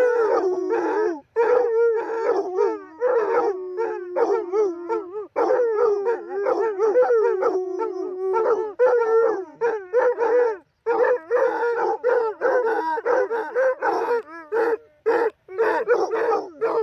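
A pack of canines howling together, several voices overlapping. The first half holds long, drawn-out howls; from about halfway the howls turn shorter and broken, with brief gaps between them.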